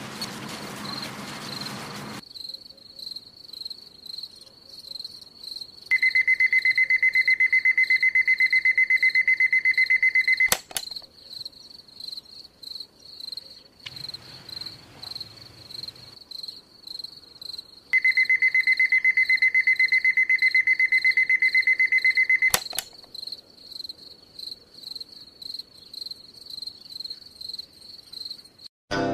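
Electronic alarm clock beeping rapidly in two bursts of about four seconds each, each cut off by a sharp click. A steady high pulsing chirp, like crickets at night, runs under it.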